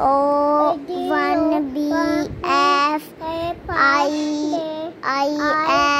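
A young child singing a short tune in a series of held notes, phrase after phrase with brief breaks between them.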